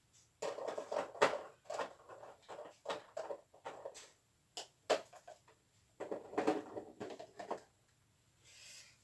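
Rustling and small clatters of craft supplies being handled, in irregular bursts, then a short soft hiss near the end.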